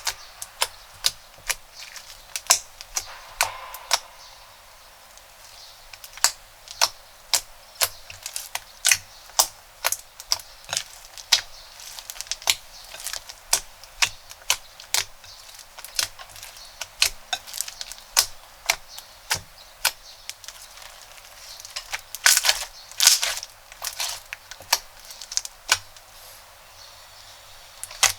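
Crunchy slime being squeezed and pressed, crackling with sharp clicking pops about one or two a second, in a denser flurry about three quarters of the way through.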